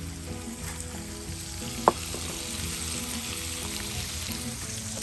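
Pork belly slices for samgyeupsal sizzling steadily on a hot grill, with one sharp clink about two seconds in.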